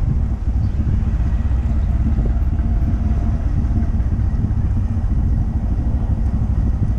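Honda Monkey 125's small single-cylinder engine running under way, a steady low rumble with road and wind noise.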